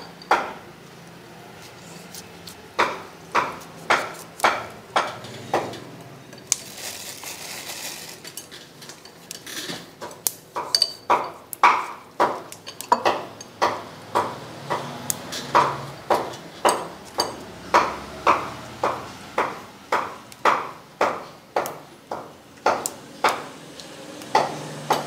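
A metal spoon clinking against ceramic bowls and plates in a long run of short ringing taps, about two a second. A brief rustle comes about six and a half seconds in.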